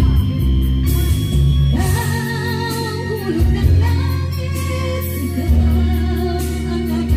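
Music: a singing voice with vibrato, coming in about two seconds in over an accompaniment of long, steady bass notes.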